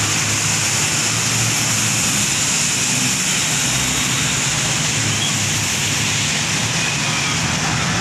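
Heavy rain falling steadily, a dense even hiss of rain on wet pavement, with a low steady rumble underneath.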